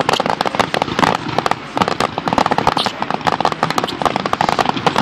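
Aerial fireworks going off overhead: a dense, unbroken run of rapid pops from spark-spraying shells.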